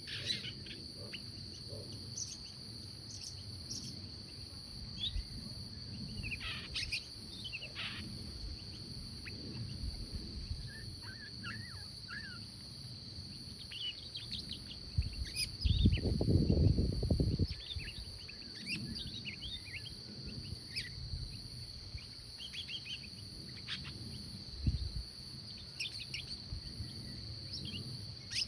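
Birds chirping and trilling in short, scattered phrases over a steady high insect drone. A loud low rumble about sixteen seconds in lasts roughly two seconds.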